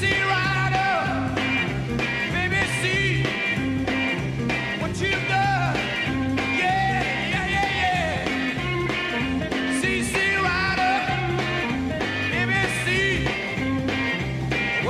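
Live 1960s rock band playing an instrumental passage: a repeating bass line and drums under a lead line of bending, sliding notes.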